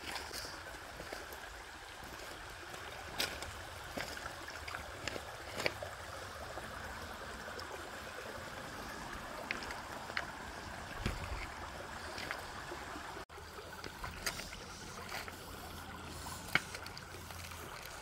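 Shallow creek trickling over stones and gravel, a steady rush of water, with a few light knocks scattered through it.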